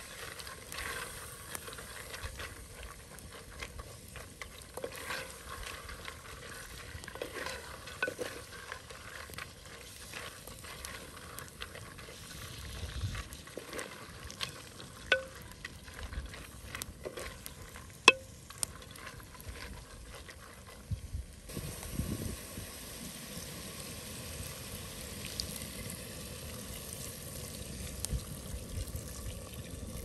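Wooden spatula stirring fava beans frying in a glazed clay pot over a wood fire: a steady sizzle with sharp knocks of the spatula against the pot. Near the end, water is poured into the pot.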